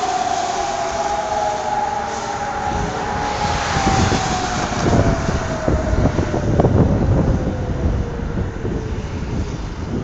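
E57 electromechanical civil-defence siren winding down, its tone slowly falling and fading out near the end. A low rumbling noise swells in the middle.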